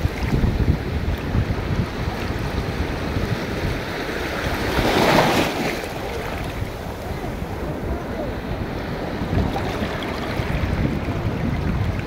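Sea waves washing against a rocky shore, with wind buffeting the microphone; one louder rush of water comes about five seconds in.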